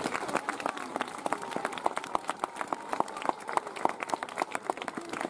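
A small crowd applauding, the separate claps of many hands heard individually.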